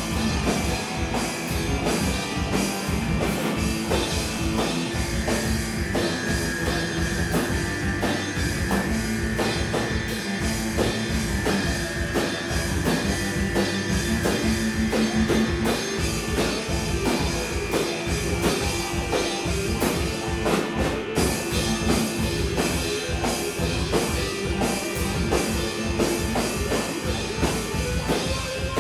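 Live rock band playing an instrumental passage: electric guitar, drum kit and synthesizer, with no singing. Recorded from the back of the room, so the band comes through with the room's sound.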